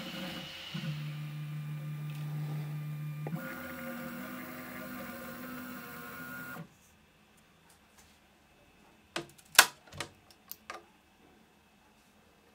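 Prusa MK3S 3D printer's stepper motors whining in steady tones that jump to new pitches twice as the nozzle slowly irons the coin's top layer, cutting off suddenly about six and a half seconds in. Then a few sharp clicks and knocks, loudest about ten seconds in, as the printed plastic coin is taken off the bed and handled.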